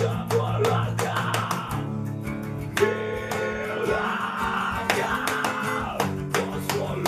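Several acoustic guitars strummed together in a steady rhythm, playing a song.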